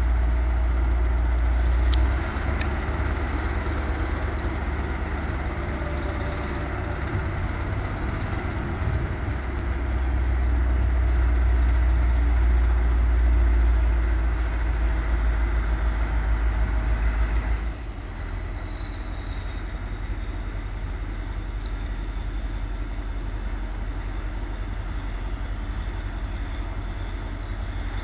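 The IVECO diesel engine of the re-engined SerFer K075 locomotive running steadily at raised revs, then dropping back to a lower, quieter idle about eighteen seconds in. A high whine falls in pitch as the revs drop.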